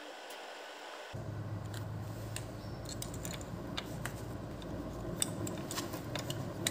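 Small sharp clicks and taps of plastic being handled as the oil filler cap and dipstick is fitted back into a moped engine's filler hole, over a low steady hum.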